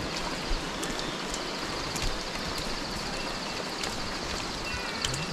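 Steady hiss of rushing water along the trail to a waterfall, with a thin high-pitched buzz running above it and a few faint ticks.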